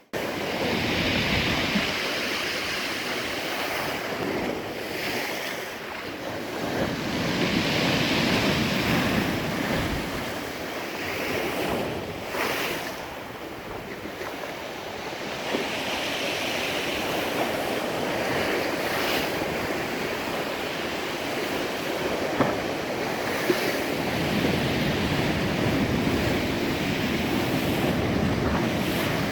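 Stormy sea surf breaking on the shore, the rush of the waves swelling and easing every several seconds, with wind buffeting the microphone.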